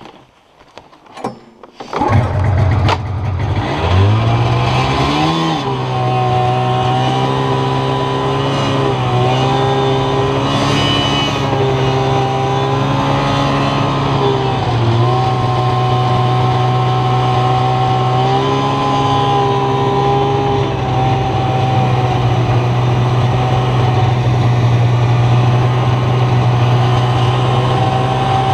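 Snowmobile engine being ridden along a snow trail: it comes up loudly about two seconds in, revs up in pitch, then runs at a steady speed with a few brief dips in pitch.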